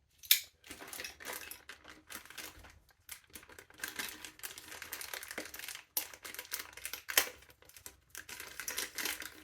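Plastic packaging being cut open with a knife and unwrapped: irregular crinkling, crackling and tearing of plastic with sharp clicks, the loudest a snap about a third of a second in.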